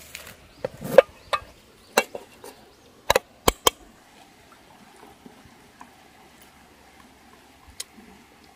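About ten sharp clicks and knocks of a metal utensil against metal cookware and wood, bunched in the first few seconds, then only faint outdoor background.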